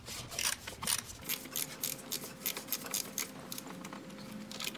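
Socket ratchet clicking in quick, irregular runs as a 10 mm bolt is loosened with a socket on an extension.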